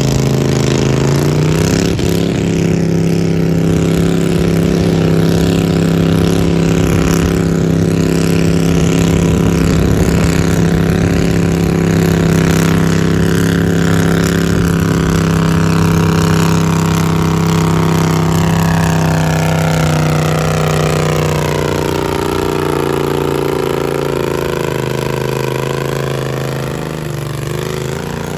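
Garden tractor engine running hard under load during a pull. Its pitch rises in the first couple of seconds, holds steady for a long stretch, then sags and wavers near the end as the engine is pulled down.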